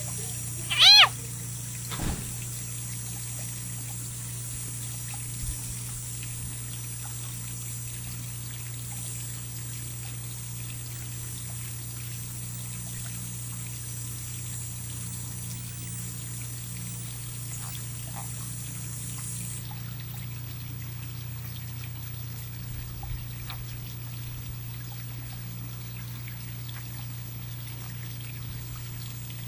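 A leopard frog caught in a ribbon snake's jaws gives one short, loud distress scream about a second in, over a steady low hum and hiss.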